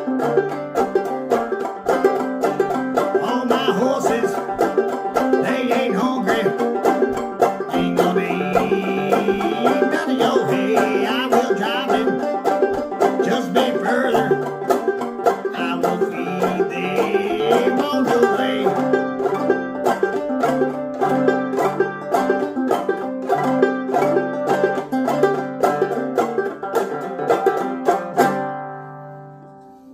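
Banjo-led acoustic string-band music, a fast run of picked notes. It ends about 28 s in on a final chord that rings out and fades.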